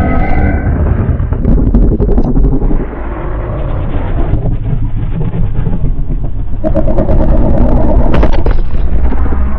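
Custom giant-monster sound effect: a loud, deep, rumbling growl, with a held, higher pitched cry rising out of it about seven seconds in for a second and a half.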